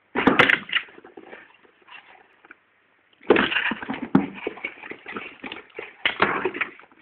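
A cat clawing and scrabbling at a cardboard box: rough scratching mixed with sharp knocks, one burst at the start, a quieter patch, then a longer spell from about three seconds in.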